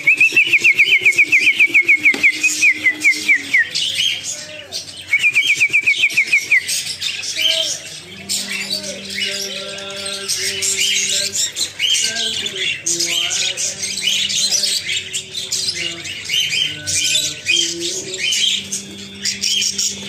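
Caged budgerigars chirping and chattering. A loud, rapid trill of repeated falling chirps runs through the first few seconds and comes back about five seconds in; after that, scattered chirps continue over low steady tones that come and go.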